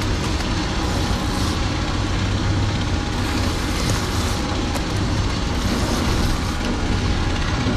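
Steady low rumble and hiss of an offshore fishing boat at sea, its outboard motors running.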